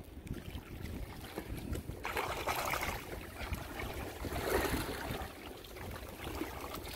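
Seawater sloshing and washing against a rock ledge, swelling from about two seconds in, over a steady rumble of wind on the microphone.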